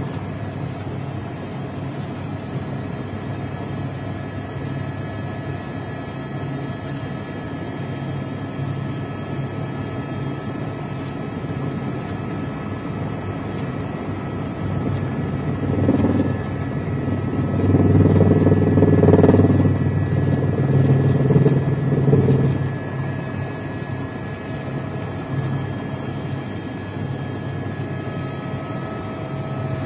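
Helicopter cabin noise: the steady drone of the engine and rotor, with a faint steady high whine. The drone grows louder for about six seconds around the middle.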